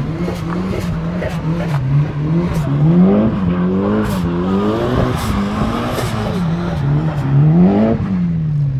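Car engine revving up and down again and again, roughly once a second, as the car drifts in circles on snow; near the end the revs fall away.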